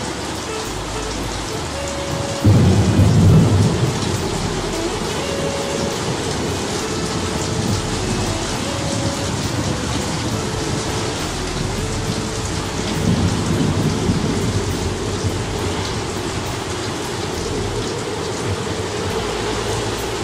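Steady heavy rain with two rolls of thunder: a sudden loud clap about two and a half seconds in that rumbles for a second or so, and a softer rumble around thirteen seconds.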